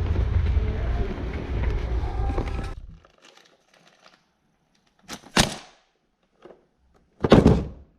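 A steady low rumble that cuts off about three seconds in, followed by two short thuds roughly two seconds apart.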